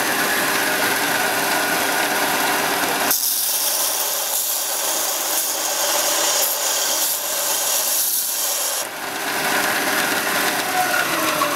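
Benchtop combination belt and disc sander running while a small metal guard piece is held against the belt and ground, a steady grinding hiss over the machine's hum. For several seconds in the middle the low hum drops away, leaving only the high hiss.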